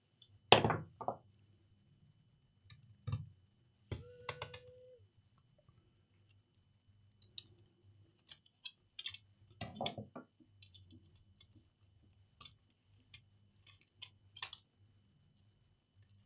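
Scattered clicks and knocks of plastic and metal laptop parts being handled and pried during disassembly at the hinge. There is a short ringing note just after a knock about four seconds in.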